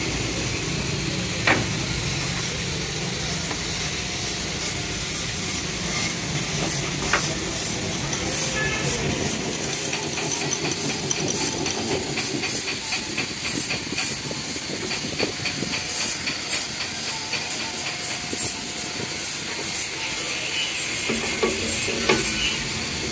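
Cylinder boring machine running as its boring bar cuts the bore of an air-cooled motorcycle cylinder: a steady hiss with a fast fine chatter, and a couple of sharp clicks in the first several seconds.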